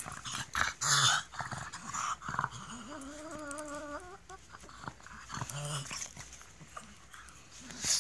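Pug play-growling and snorting while it wrestles with a hand and mouths at it, in short irregular huffs and snuffles. About three seconds in comes one drawn-out, wavering growl lasting about a second and a half.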